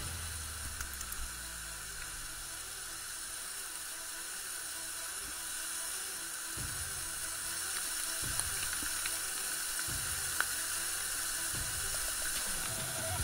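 Waterfall water pouring and splashing right onto the camera, a steady rushing hiss of falling water. A few dull low bumps come partway through.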